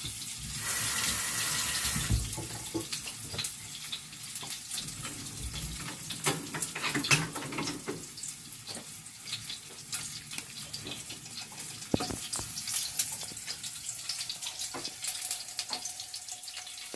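Chicken wings frying in oil on low heat: a steady sizzle with many sharp pops and crackles, the oil spattering on skin that was not fully dried. The sizzle is a little louder for a second or so near the start.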